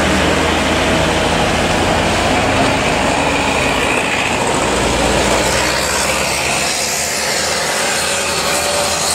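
Diesel engine of a heavy fuel tanker truck running on the road, with a steady hiss of tyres on wet pavement. The low engine sound weakens about four seconds in.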